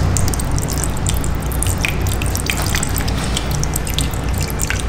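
Soy sauce pouring in a thin stream from a bottle into a glass measuring cup, with scattered small drips and splashes, over a steady low hum.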